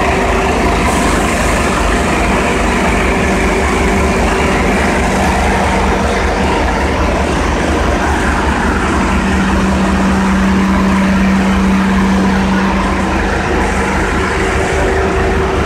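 Orion VII transit bus running close by, a steady engine drone and rumble with a hum that swells for a few seconds partway through.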